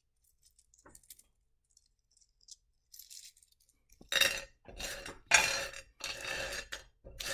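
Rough black opal rubs clinking faintly against one another in the hand, then from about four seconds in a heap of wet rough opal pieces clattering in a tub in several loud bursts as a hand stirs and sifts through them.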